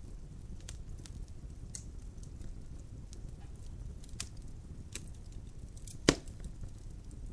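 Wood fire crackling in a fireplace: a steady low rumble of the flames with scattered sharp clicks and one loud pop about six seconds in.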